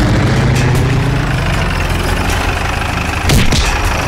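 A motor engine runs steadily, with a sharp thump about three seconds in.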